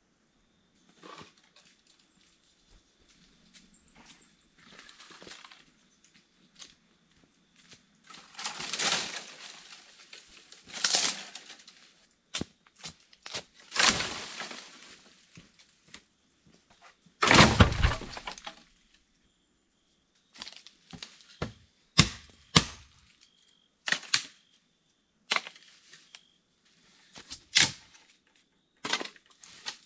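Dry dead branches being pulled from the undergrowth and dragged over dry fallen leaves, with rustling crashes and sharp cracks of snapping wood; the biggest crash comes just past the middle, and short sharp cracks follow in the second half.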